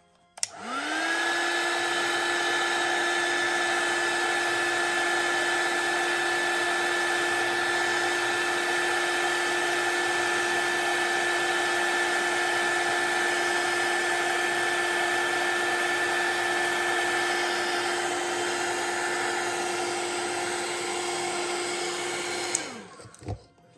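A 300 W hot air gun switched on with a click. Its fan motor spins up to a steady whine over a rushing fan hiss, then it is switched off near the end and winds down.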